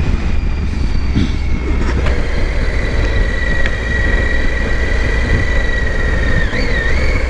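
Motorcycle being ridden: engine and road noise over a heavy low rumble, with a steady high-pitched whine that wobbles briefly near the end.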